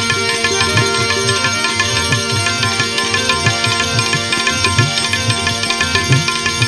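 Instrumental interlude of a Gujarati devotional bhajan: steady held melodic tones over a regular hand-drum beat, with no singing.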